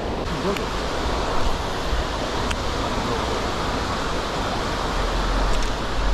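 Shallow stream running over a stony bed, a steady rushing noise, with a few faint ticks on top.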